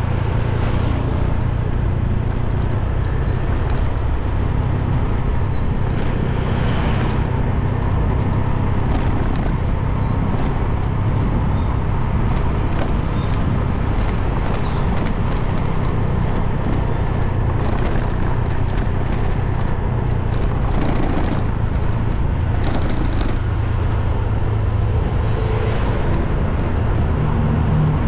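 Motorbike engine running steadily under way, with a constant hum of road and wind noise and a few brief swells of passing traffic.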